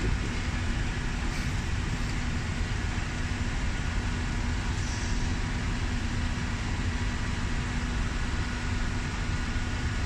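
A steady mechanical rumble with a constant low hum, unchanging throughout.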